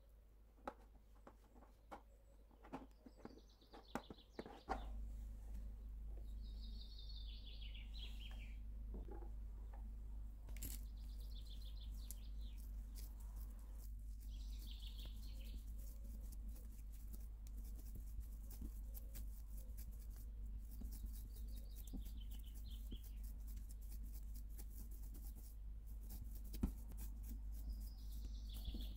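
Small birds chirping in short phrases every few seconds, over soft sticky clicks and slaps of hands mixing and kneading pizza dough. About five seconds in, a steady low hum starts.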